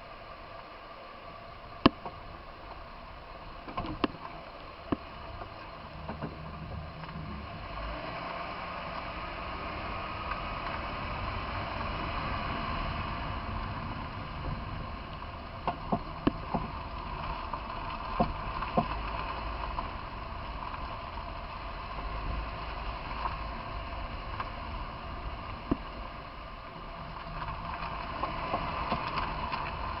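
Sharp pops at irregular intervals, about a dozen, over a steady running mechanical noise; the loudest pop comes about two seconds in, and there are clusters of them around sixteen to nineteen seconds.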